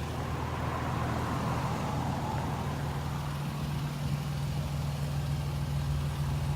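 A car engine idling steadily, a low even hum with no revving.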